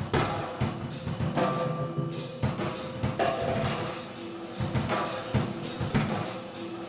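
Instrumental music with a steady drum beat, about two strikes a second, over a few held tones.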